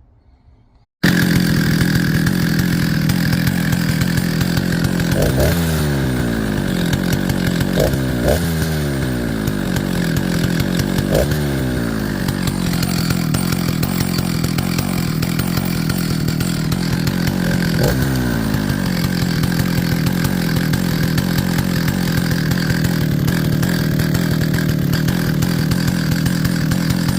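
Jonsered two-stroke chainsaw, which the owner thinks is a 621, running after being salvaged. It starts abruptly about a second in, then idles steadily and is blipped to higher revs about five times, each rev falling back to idle.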